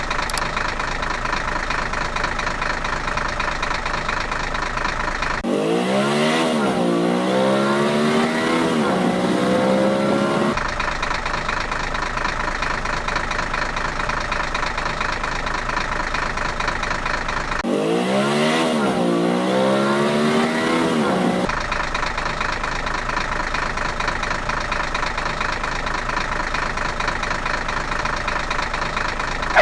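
Vehicle engine running with a fast, even rattle, twice breaking into a rising and falling rev lasting a few seconds before settling back to the steady run; the same pattern repeats, as in a looped engine sound track.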